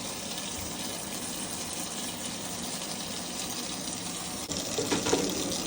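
Kitchen tap running in a steady stream of water.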